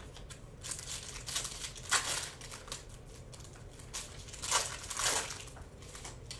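Foil trading-card pack wrapper being torn open and crinkled by hand, in a series of short irregular crackles, loudest about two seconds in and again around four and a half to five seconds.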